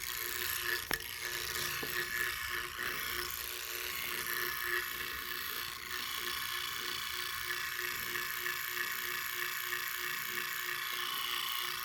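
Fast motor of a Leslie 147 bottom two-speed motor stack, switched on and running on the bench: a steady hum under a rough, noisy mechanical whir that starts abruptly. It is a worn motor in need of a rebuild, far from the quiet, smooth running it should have.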